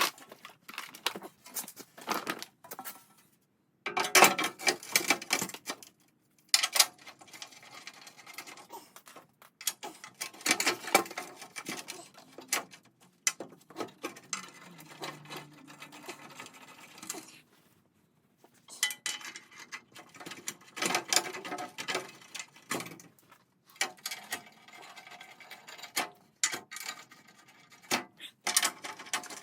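Spells of rapid ratchet-wrench clicking and light metal clanks as the front skid plate is bolted back onto a Ford F150, with short pauses between them.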